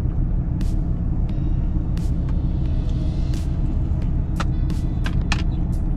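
Steady low rumble of the parked pickup's idling engine, heard from inside the cab. Over it come scattered sharp clicks from eating, bunched together about four to five seconds in, as he bites into a donut.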